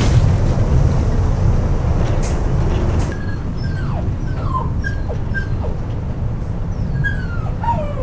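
Hurricane wind rumbling and roaring. About three seconds in the rumble drops and a small dog in a wire crate starts whimpering: a string of short high whines falling in pitch, with a longer whine near the end.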